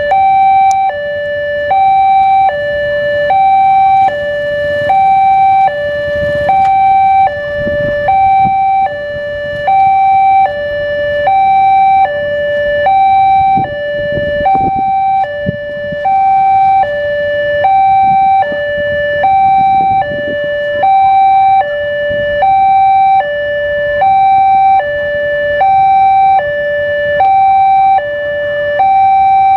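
Railway level-crossing warning alarm sounding steadily in two alternating electronic tones, high then low, each about half a second long. It shows that the crossing signal is active for an approaching train.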